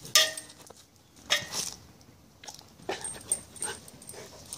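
A Belgian shepherd dog biting and mouthing a red rubber ball, with short sharp sounds. The loudest comes right at the start and another about a second and a half in, followed by lighter clicks a couple of seconds later.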